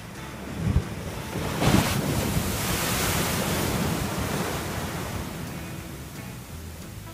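Ocean surf breaking and washing over the beach: a rush of foaming water that swells about a second and a half in and fades away over the next few seconds. Wind on the microphone, with two low thumps near the start.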